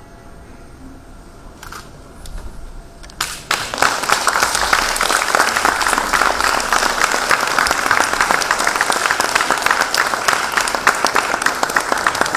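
Audience applauding: a few scattered claps, then about three and a half seconds in the crowd breaks into loud, dense clapping that keeps going.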